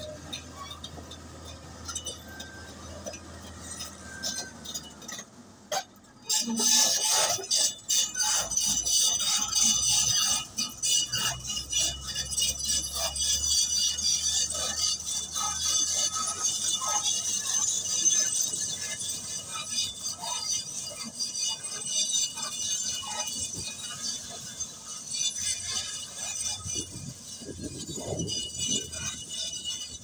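Komatsu D155A crawler bulldozer working loose rock: dense metallic clanking and rattling of its steel tracks and stones over a low engine rumble. It gets sharply louder about six seconds in.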